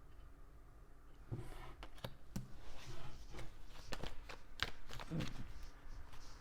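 Tarot cards being handled and shuffled: irregular clicks, taps and soft rustling that start about a second in.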